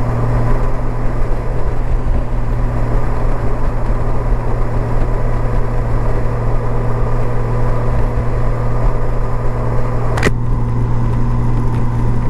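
Honda Gold Wing flat-six motorcycle cruising at highway speed: a steady engine drone with wind and road noise. A sharp click comes about ten seconds in, after which the sound is duller.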